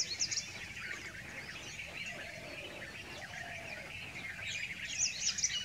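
Chorus of many small wild birds chirping and trilling, busier near the end, with a fainter, lower drawn-out call in the middle.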